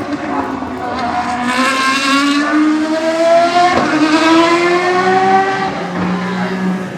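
Ferrari racing car engines at high revs as cars pass on track. The engine pitch climbs steadily with a short break partway through, and the sound peaks in the middle before fading.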